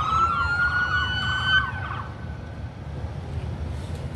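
Several emergency-vehicle sirens wailing together, their overlapping rising and falling tones dying away about two seconds in, leaving a low rumble.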